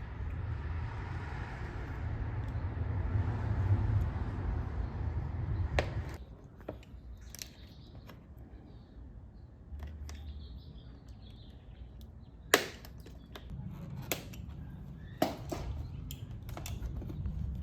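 A rumbling hiss for about six seconds, then a few sharp clicks and knocks, the loudest about two-thirds of the way through.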